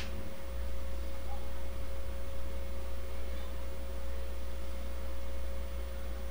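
Steady low hum with a constant thin whining tone over it, unchanging throughout.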